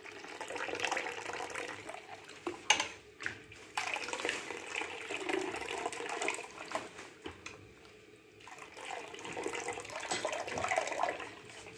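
Thin ground-rice batter sloshing as it is stirred and mixed up and down with a lot of water in a vessel, with a couple of sharper knocks about a third of the way in and a brief lull about two-thirds through.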